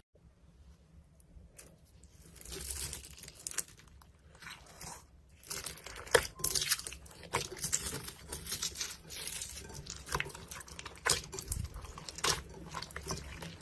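Slime being squished and stretched by hand, with irregular crackling and many sharp pops and clicks. It starts faintly and grows busier and louder about halfway through.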